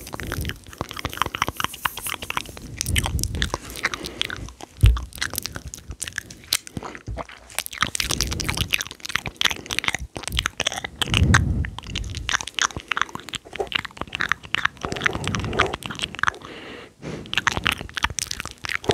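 ASMR mouth sounds: rapid wet clicks and smacks of tongue and lips, densely packed, with a few low puffs now and then.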